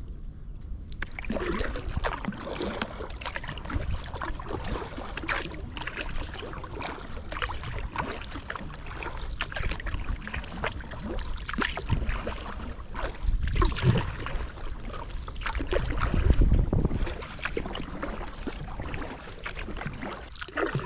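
Kayak paddle splashing and water washing against the hull, with wind gusting on the microphone; the gusts are strongest about three quarters of the way through.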